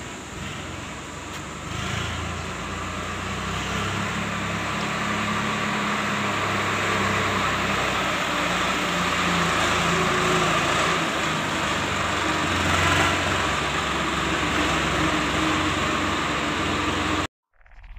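Eicher 380 tractor's diesel engine running steadily, a little louder from about two seconds in. The sound cuts off abruptly just before the end.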